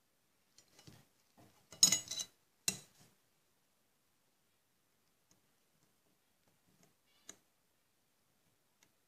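Light metal clicks and knocks from a small metal object and the locking pliers holding it being handled on a table, a cluster about one to three seconds in with the loudest about two seconds in, then a single faint tick near the end.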